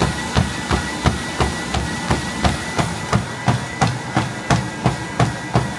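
Running footsteps landing on a treadmill belt, about three steps a second, over the treadmill's steady high whine.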